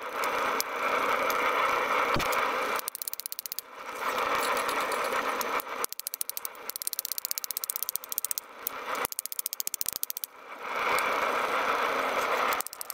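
Hot steel plate being worked with a hammer on an anvil: runs of many quick sharp taps alternate with stretches of steady rushing noise.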